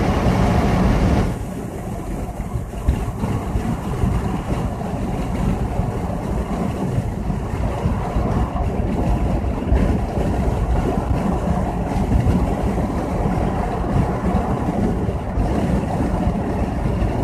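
Mercedes-Benz car cruising on a motorway, heard from inside the cabin: a steady low rumble of tyres, engine and wind. The first second or so is louder and hissier before it settles.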